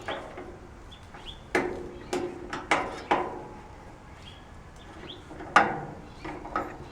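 Sharp knocks and clinks on the metal parts of a barbecue grill being assembled, about eight spread irregularly, several with a short metallic ring; the loudest comes about five and a half seconds in.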